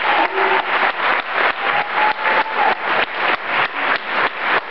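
Audience applauding, with one pair of hands clapping close by at a steady rhythm of about three claps a second.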